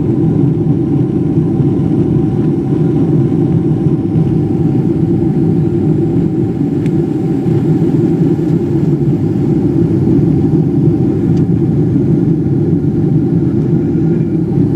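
Steady drone of a Boeing 777-300ER's GE90-115B jet engines heard inside the passenger cabin, a deep rumble with a faint steady whine above it.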